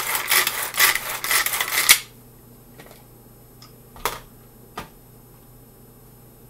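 Tupperware Chop 'N Prep pull-cord chopper worked with rapid repeated cord pulls, its blades rasping through peppers and onions. It stops suddenly about two seconds in, followed by a couple of light clicks.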